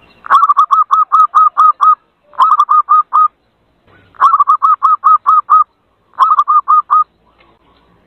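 Zebra dove (perkutut) lure call: four loud runs of quick, identical notes, about eight a second, each run lasting one to two seconds with short pauses between.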